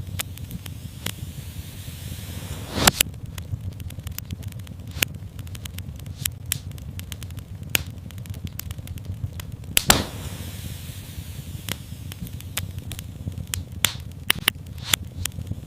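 Wood fire crackling in a fireplace: irregular sharp pops and snaps over a steady low rumble of burning, with two louder pops, one about three seconds in and one near ten seconds in.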